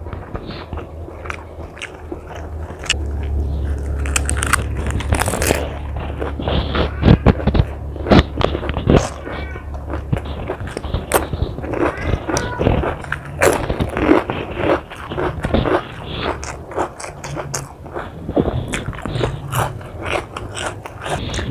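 Close-miked biting and chewing of crisp food, potato chips and fresh lettuce, with many sharp, irregular crunches. A low steady hum runs under the first half.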